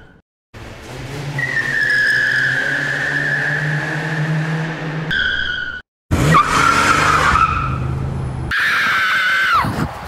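Car tyres squealing in a long skid over a steady low engine hum, in three stretches broken by two short silences; the last squeal bends down in pitch near the end.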